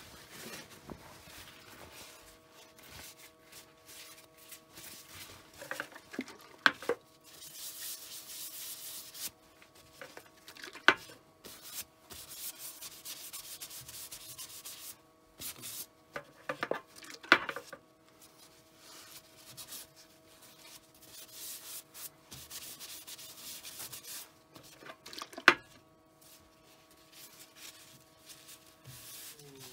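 A rag rubbing Danish oil onto a turned willow vase, coming in bouts of soft hissing wipes, with four sharp clicks along the way. A faint steady hum runs underneath and stops near the end.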